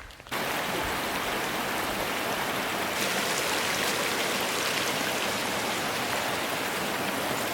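Steady rush of a flowing stream, starting abruptly about a third of a second in.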